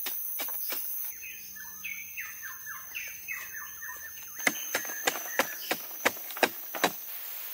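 A blade chopping into a block of packed earth: a few sharp strikes, then a bird calling a run of short falling notes for about three seconds over a thin steady high tone, then about eight quick strikes, roughly three a second.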